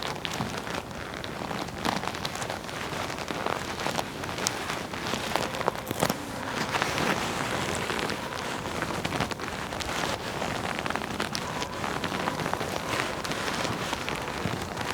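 Leather jacket being rubbed: continuous rustling and scuffing of the leather, dotted with many small crackles and creaks.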